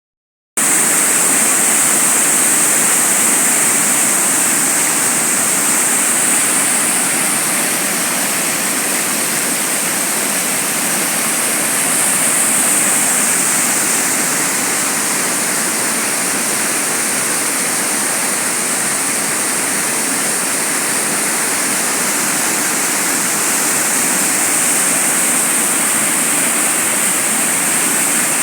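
Waterfall rushing steadily, a dense unbroken roar of falling water close by.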